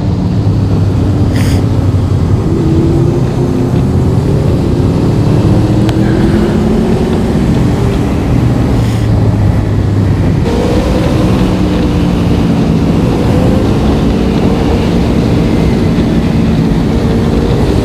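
Motorcycle engine running on the road, its pitch drifting up and down with engine speed and shifting noticeably about ten seconds in, with road and wind noise underneath.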